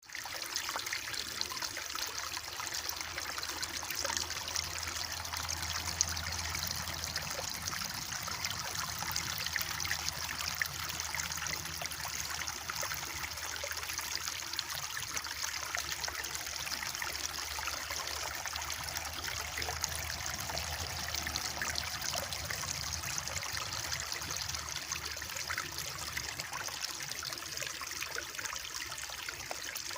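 Mountain stream flowing and trickling over rocks, a steady rushing splash with a faint low rumble underneath.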